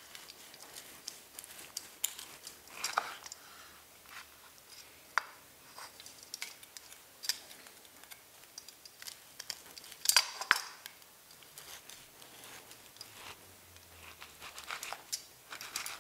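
Kitchen knife slicing through a seared steak on a wooden cutting board, with scattered light clicks and scrapes of the blade meeting the board and a louder clatter about ten seconds in.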